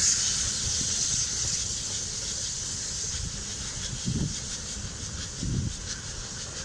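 USATC S160 2-8-0 steam locomotives running in reverse, with a steady hiss of steam over a low rumble that grows slightly fainter as they draw away.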